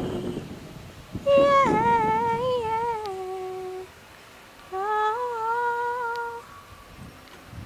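A person humming a tune, two phrases of held notes with small pitch steps, a short pause between them.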